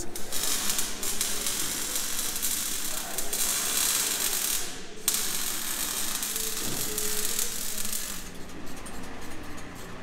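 Exhaust-shop work on the car's new exhaust: a steady, harsh hiss of tool noise, broken off briefly about five seconds in and easing near eight seconds.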